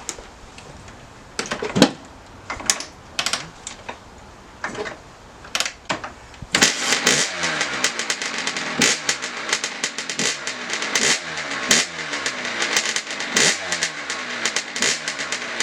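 Kawasaki KX85 two-stroke single-cylinder engine on its first start after a top-end rebuild. A few scattered clanks are heard, then about six and a half seconds in it fires and runs, with the throttle blipped so the revs rise and fall over and over.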